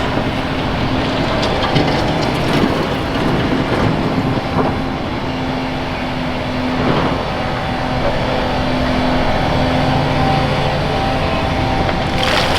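Heavy diesel machinery running steadily: the engine of a Volvo EC480EHR excavator working alongside dump trucks, with a few faint knocks. A loud rush starts at the very end.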